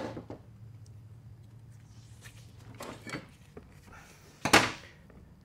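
Light clinks and knocks of metal transfer-case parts and tools being handled on a steel workbench, with one sharp metallic clank about four and a half seconds in. A low steady shop hum runs underneath.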